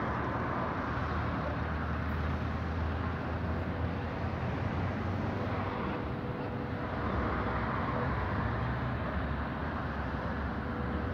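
Diesel engine of the GA8 locomotive 5557 running as it approaches slowly from a distance with a work train, a steady low rumble under outdoor noise.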